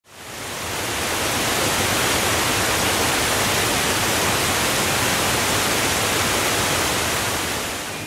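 Steady rush of a waterfall, water cascading over rock into a pool; it fades in over the first second and eases slightly near the end.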